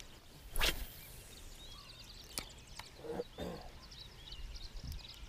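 A fishing rod swishes through the air on a cast about half a second in. After that come light clicks and small sounds from the reel and gear, with birds chirping in the background.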